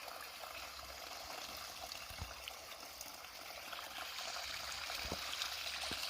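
Small creek's water running and trickling steadily, growing a little louder near the end, with a few faint dull knocks.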